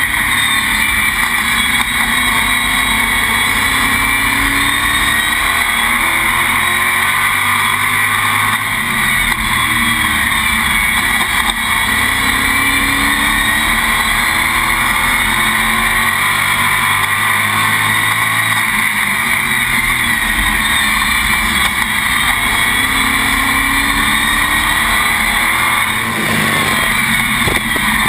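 Stock race car's engine at racing speed, heard from inside the cockpit: loud and continuous, its pitch rising and falling again and again as the car accelerates and lifts around the laps.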